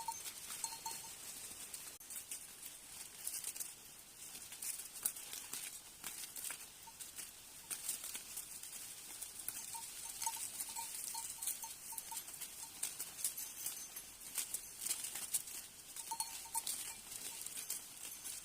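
Goats moving about, with scattered light clicks and rustles. A small bell tinkles in short runs of notes about ten seconds in and again near the end.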